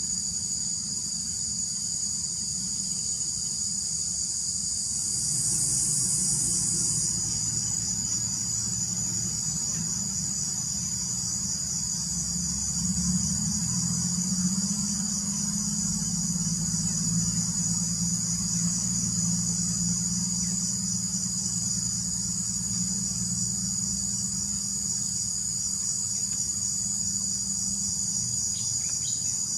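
A continuous high-pitched chorus of insects, with a fast pulsing trill over a low rumble.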